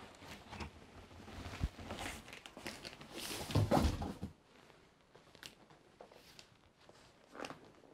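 Corrugated cardboard scraping and rubbing as an outer shipping carton is slid up off a large boxed toy playset, loudest between about three and four seconds in. After that come a few lighter knocks and scuffs as the cardboard box is handled.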